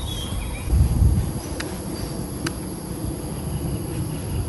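Outdoor ambience of steady high-pitched insect buzzing over a low rumble of wind noise, which swells about a second in. Two faint ticks come about a second apart.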